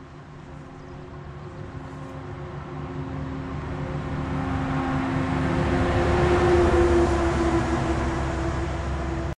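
Engine hum of a passing vehicle, growing steadily louder for about seven seconds, easing a little, then cutting off suddenly.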